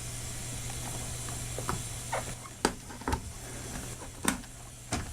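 About six light clicks and knocks of hands handling small hardware, spaced irregularly, over a steady low electrical hum.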